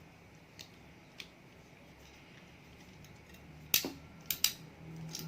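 Crimping tool pressing an RJ45 plug onto a UTP cable: a couple of faint ticks, then a loud sharp click near the end followed quickly by two more clicks.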